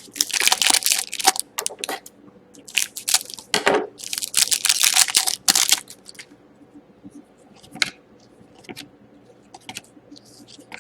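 Foil trading-card pack wrappers crinkling and tearing in three bursts of a second or two each, then a few light taps and ticks.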